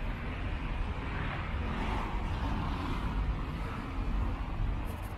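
City street traffic: cars passing on a wet, slushy road, a steady rumble with tyre hiss.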